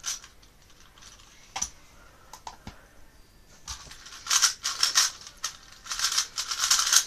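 Plastic 3x3 Rubik's cube being turned fast by hand. A few isolated clicks come first, then from about halfway a rapid run of rattling clacks as the layers are spun at speed.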